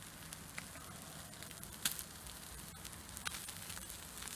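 Anchovies grilling over a charcoal mangal: a steady sizzle with sharp crackles now and then, the loudest about two seconds in.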